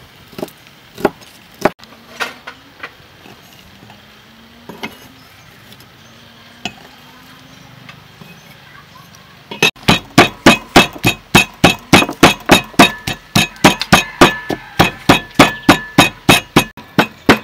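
Wooden pestle pounding chopped lemongrass and chillies into curry paste in a deep wooden mortar: steady, even strikes about three a second, starting about ten seconds in. Before that, only a few scattered knocks of a cleaver on a wooden chopping board.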